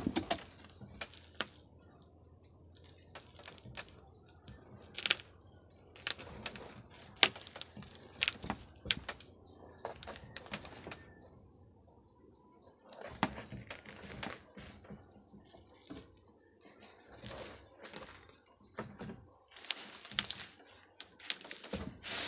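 Kitchen knife cutting through the rind of a ripe jackfruit: irregular sharp clicks and crackles as the blade works through the fruit.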